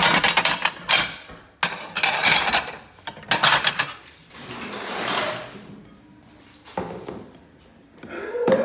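Ceramic plates and glass bowls clattering and clinking as they are handled, with a series of loud crashes of glass being smashed against a wooden table.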